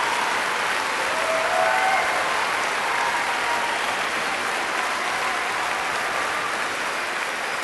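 Large crowd applauding steadily.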